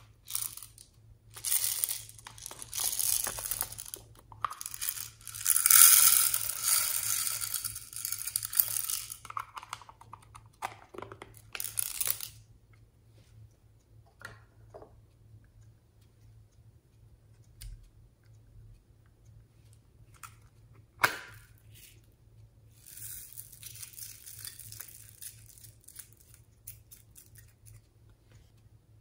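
Handling of small plastic containers and foam beads: bursts of rustling and crinkling through the first twelve seconds or so, a single sharp click a little past the middle, and a softer rustle near the end as foam beads are tipped into a glass tray.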